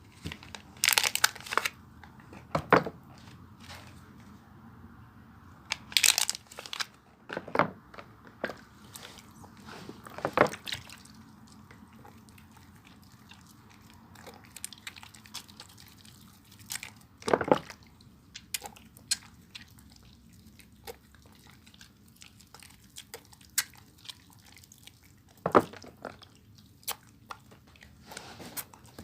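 Bar of soap being worked by hand, giving crisp crunching and crackling sounds in separate bursts a few seconds apart, with quiet stretches between.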